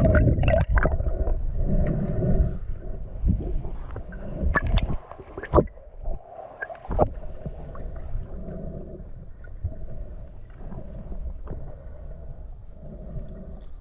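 Muffled water noise picked up by a GoPro camera in its waterproof housing while snorkeling: a low rumble with bubbling and several sharp knocks or splashes in the first half, then quieter.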